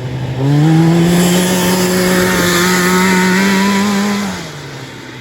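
Yamaha 540 two-stroke snowmobile engine in a homemade kart: it revs up about half a second in, holds at a steady high pitch that climbs slightly, then falls back toward idle near the end.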